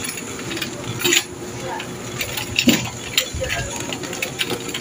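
Plastic shopping cart rattling and clicking as it is pushed along a supermarket aisle, with a low rolling rumble and a thump about three and a half seconds in. Faint background voices of other shoppers.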